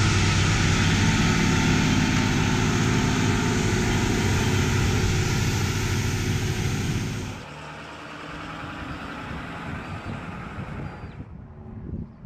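Asphalt distributor truck passing close while spraying preservative seal: a heavy truck engine running under a loud, steady hiss. About seven seconds in the sound drops to a quieter engine rumble, and the hiss cuts off near the end.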